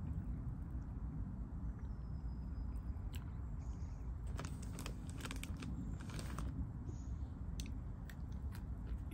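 A person crunching and chewing a dry snack taken from a plastic zip-lock bag, with a cluster of crisp crunches a few seconds in. A steady low rumble runs underneath.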